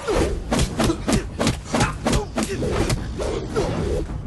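A fast series of hits, about three a second, each with a short falling shout or grunt, as in a video-game fight.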